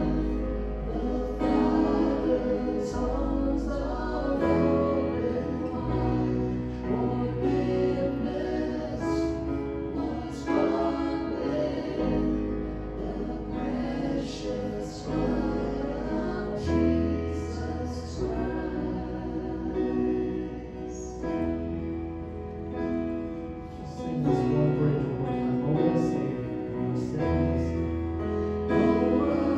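A church worship band playing a worship song: acoustic guitars and piano over a sustained bass line, with several voices singing together.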